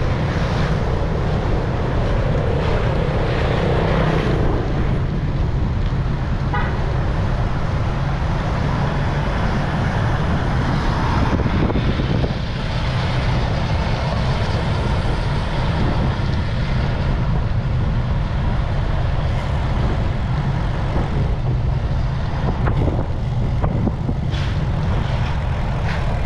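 Steady wind and road rumble on a bicycle-mounted action camera while cycling.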